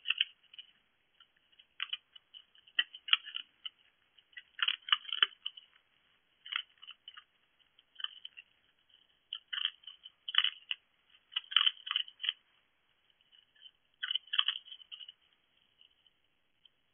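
A fox chewing dry food from a bowl: irregular clusters of crisp crunches every second or two, with short quiet gaps between. The sound is thin and tinny through a security camera's microphone.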